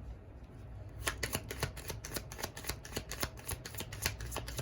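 A deck of tarot cards being shuffled by hand: a rapid run of soft clicks that starts about a second in.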